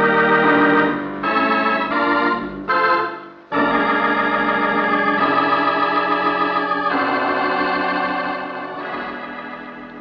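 Organ music bridge: a held chord, a few short chords, then a long sustained chord that fades away near the end, marking a scene change in the radio drama.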